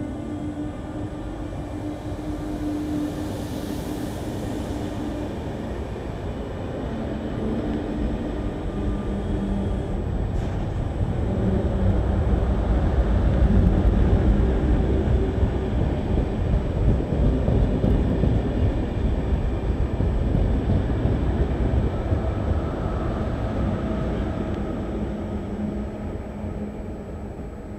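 RER B MI79 electric train pulling out of the station: its traction motors whine in shifting tones while the wheels rumble on the rails. The rumble grows loudest as the cars pass, then fades as the train moves away near the end.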